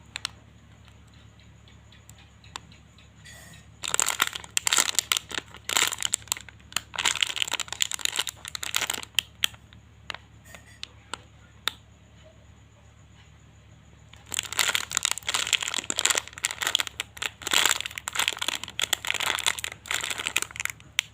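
Plastic crinkling and crackling as a foam squishy is handled in its plastic wrapping. It comes in two long bouts, one a few seconds in and another in the second half, with quieter pauses between.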